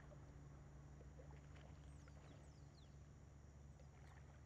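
Near silence: faint outdoor ambience with a few quick, falling bird chirps about two seconds in.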